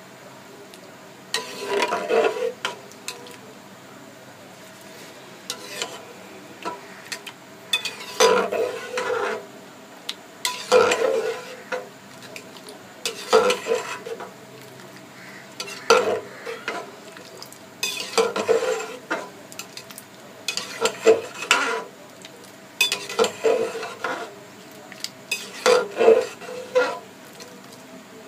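Slotted metal spoon stirring potato strips in a metal pot of water on the stove, scraping and clinking against the pot in short strokes about every two and a half seconds. The potatoes are being stirred as the water heats towards the boil, so the pieces at the bottom don't scorch.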